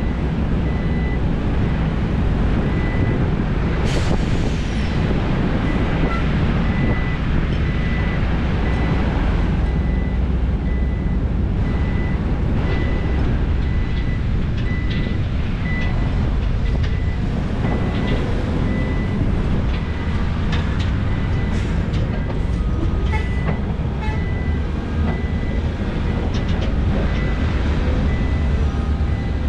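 Heavy diesel engines of SANY SY500 excavators and trucks running steadily, with a warning beeper sounding about once a second. Scattered clanks and knocks, loudest about four seconds in, come from rock being loaded into the truck beds.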